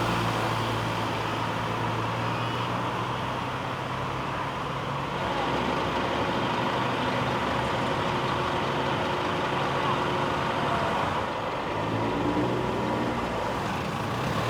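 Steady motor vehicle and road traffic noise, with an engine hum that comes and goes.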